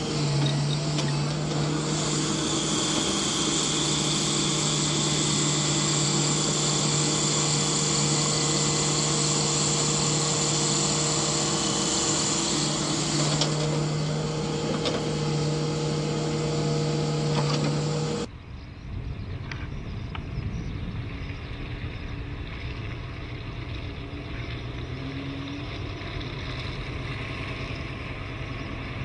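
Kobelco excavator's diesel engine running steadily, with a high whine laid over it from about two seconds in until past halfway. About two-thirds through, the sound cuts abruptly to a quieter, lower engine rumble from a truck idling.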